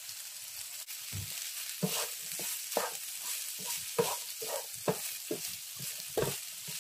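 Mixed vegetables (sweet corn, peas, diced carrot and green beans) sizzling in a hot nonstick frying pan with a steady hiss, while a wooden spatula stirs and scrapes them. The spatula strokes start about two seconds in and come about twice a second.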